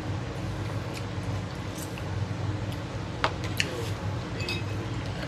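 Quiet mealtime sounds: a few light clicks of a fork on a plate and of a bowl, the sharpest two about three and a half seconds in, over a steady low hum.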